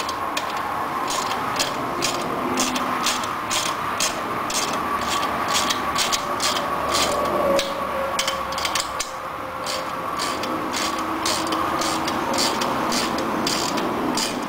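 Ratcheting wrench clicking steadily, about three clicks a second, as it turns a motorcycle's rear chain adjuster bolt.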